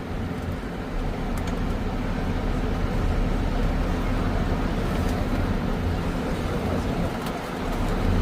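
Bus engine running with a steady low hum.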